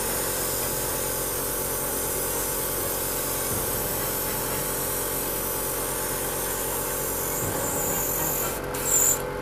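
Airbrush spraying thinned acrylic paint: a steady hiss of air over the hum of the compressor, with a short louder hiss just before it stops.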